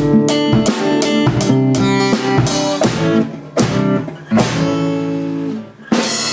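Instrumental music: guitar over a drum kit, the drum hits thinning out near the end and a final struck chord ringing out.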